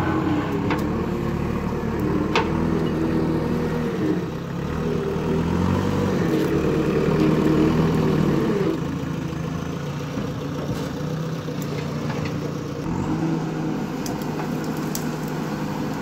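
JCB 3DX backhoe loader's diesel engine running under load as the backhoe digs, its speed rising and falling with the hydraulic work, loudest in the middle. A couple of sharp knocks sound in the first few seconds.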